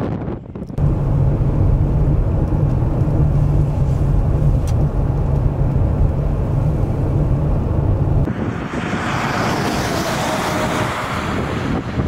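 Steady low rumble of a running vehicle engine mixed with wind. About eight seconds in it gives way to a wider, higher hiss of wind blowing through the snow.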